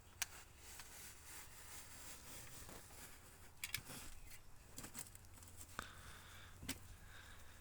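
A few faint, scattered clicks and light knocks, irregularly spaced, over a steady low hum.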